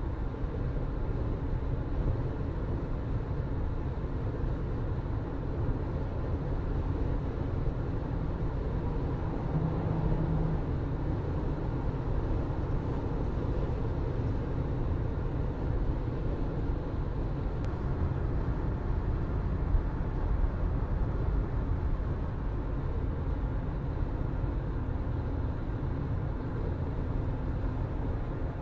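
A car driving at steady speed: continuous low road and engine rumble with tyre noise.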